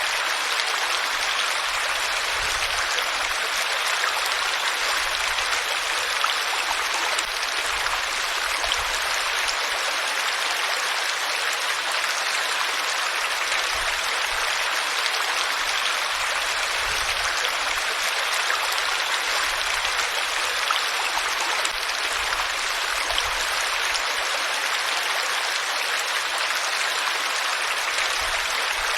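Flowing water: a stream or small waterfall running with a steady, even rush and splash.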